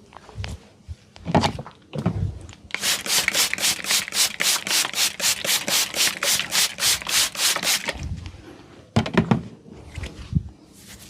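Hands rubbing hard and fast over an oiled scalp and hair during a head massage: an even run of strokes, about four a second, through the middle, with a few scattered heavier handling sounds before and after.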